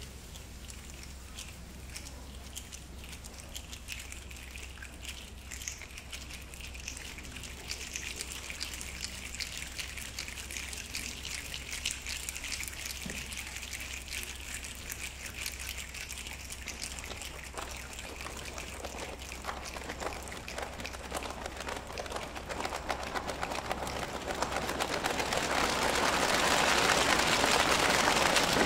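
A chorus making a rainstorm with their bodies: many hands rubbing together and fingers snapping, a soft patter of clicks that grows steadily louder, turning to thigh slaps near the end.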